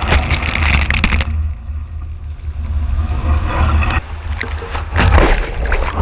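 Typhoon storm waves crashing on a rocky coast: one big crash at the start and another about five seconds in, over a constant low rumble of wind buffeting the microphone.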